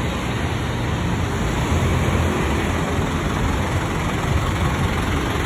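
Isuzu NQR city bus's diesel engine running with a steady low rumble as the bus pulls in alongside the kerb and stops, over street traffic.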